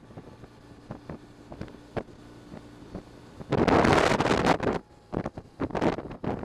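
Wind buffeting the microphone on a moving BMW touring motorcycle, with the engine's steady low hum underneath. A loud blast of wind noise comes about three and a half seconds in and lasts about a second, followed by shorter gusts.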